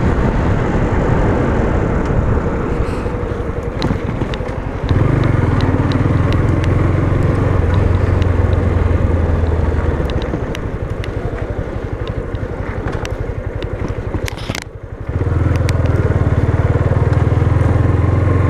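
Yamaha Fazer motorcycle engine running under way on a dirt road, heard from the rider's position. The engine note gets louder about five seconds in, eases off, dips briefly near the end, then picks up strongly again, with scattered small clicks along the way.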